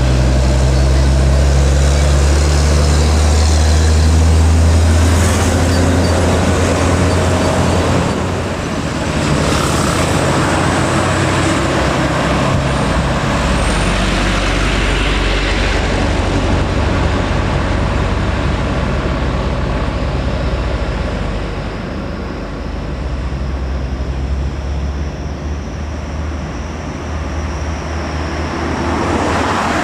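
Heavy loaded diesel trucks climbing a steep grade, engines labouring with a deep drone that is strongest in the first few seconds and then gives way to steady tyre and traffic noise. Brief hisses about 5 and 9.5 seconds in.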